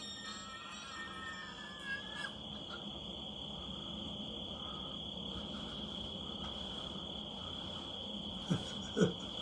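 Insects, likely crickets, trilling in one steady high tone throughout. A higher wavering call fades out about two seconds in, and two short low knocks come close together near the end.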